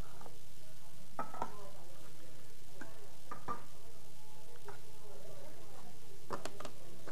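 A spoon stirring risotto in a pot, with a few sharp knocks and scrapes against the pot, over a steady low hum.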